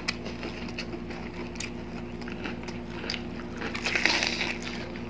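Close-up eating of crispy fried chicken: crisp skin crackling and crunching between the teeth as it is bitten and chewed, with scattered sharp crunches and a louder spell of crunching about four seconds in.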